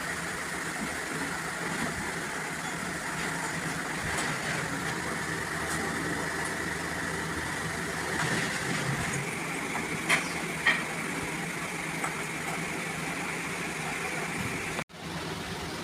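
Steady engine-like running noise, with two sharp clicks about half a second apart near the middle and a momentary dropout near the end.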